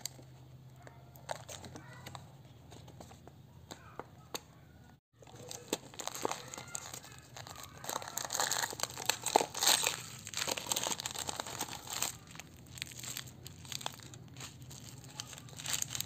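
Plastic and foil snack packaging crinkling and rustling in the hands: a chocolate cereal cup is opened and a foil sachet is pulled out of it. It starts with a few light clicks, then becomes dense crinkling after about six seconds, loudest a little past the middle.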